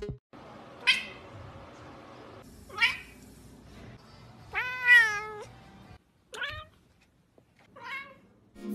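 Domestic cats meowing: five separate meows, the longest and loudest about five seconds in, with a wavering pitch.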